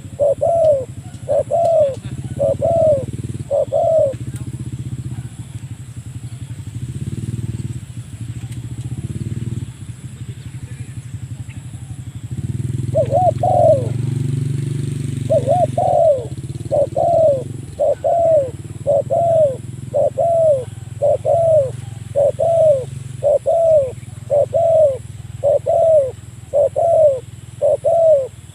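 Spotted dove (tekukur) cooing in a steady series of short, arching notes, about one a second. The notes pause for several seconds after the first few and then resume, over a low rumble.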